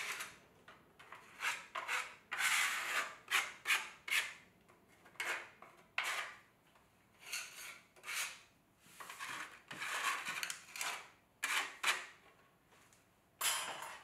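A hand sweeping dry clay crumbs and trimmings across a plywood board, in about a dozen uneven rubbing strokes with short pauses between.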